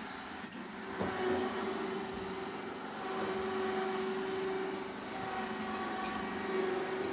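Electric winch motor running steadily with a humming tone as it pulls a rolling, engineless Porsche 911 shell by its cable. The hum eases briefly a couple of times.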